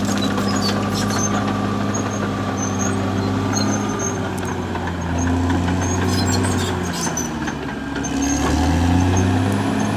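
Caterpillar D6R XL bulldozer's diesel engine running, its drone swelling and easing as the load changes, with scattered light clicks and squeaks from the machine.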